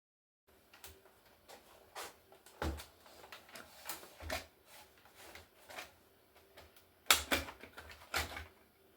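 Scattered clicks and knocks of hard plastic laptop casing parts being handled and prised apart, with the loudest knocks about seven seconds in.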